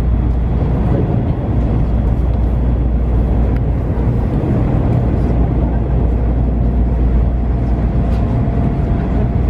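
Tokaido Shinkansen train running, heard from inside the passenger car as a steady low rumble with a constant hiss of running noise.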